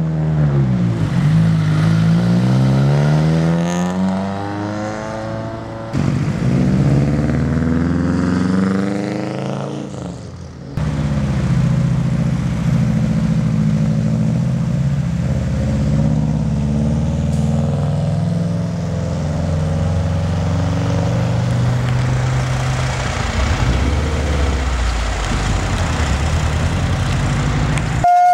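Subaru Impreza WRX STI rally cars' turbocharged flat-four engines revving hard, the pitch swinging up and down as the cars spin their wheels and slide on snow. The sound changes abruptly twice, about six and eleven seconds in, between shots of different passes.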